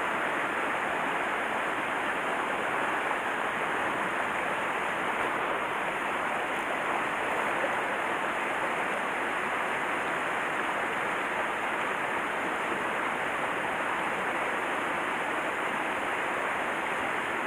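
Mountain stream water rushing steadily over rocks, an even unbroken flow noise.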